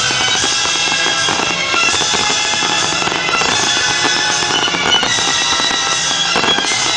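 A fireworks display with continuous crackling and popping bursts, over loud music playing throughout.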